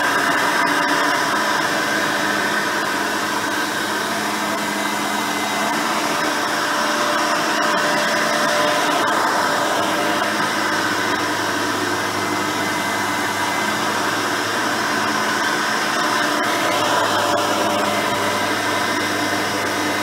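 Hoover Elite 350 upright vacuum cleaner running steadily on carpet: its 5-amp motor and seven-blade fan give a steady rushing whir with a hum, while the red-bristle dual-row brush roll sweeps the pile.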